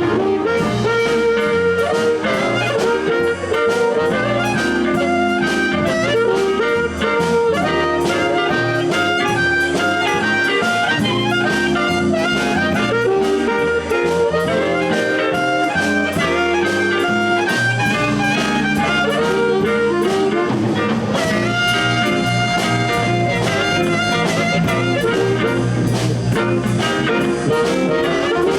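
Live blues band playing an instrumental break: a blues harmonica solos in long held notes over electric bass, electric guitar and drums.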